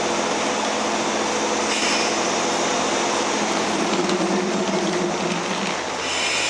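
Steady mechanical noise of an electric train at a station platform, with a low hum that swells for a couple of seconds near the middle.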